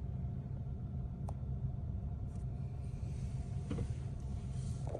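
Vehicle engine idling: a steady low rumble, with brief faint rustles of handling about four seconds in and at the end.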